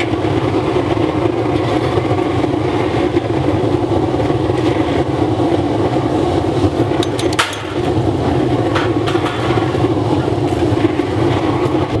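A 300 kW waste oil burner firing into a furnace, a loud steady rushing noise with a low hum under it. A few short sharp clicks about seven to nine seconds in, from a steel rod scraping the burnt phone remains in the furnace.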